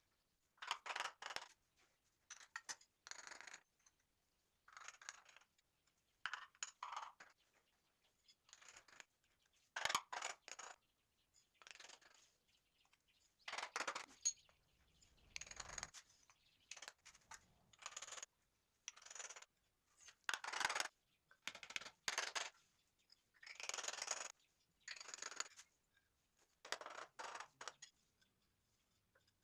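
Tools scraping and clinking on ceramic tile during tiling work: a run of short, separate scrapes and clinks with brief pauses between them.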